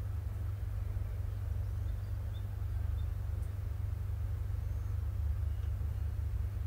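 Steady low rumble of background noise picked up by the recording microphone, with a few faint short ticks.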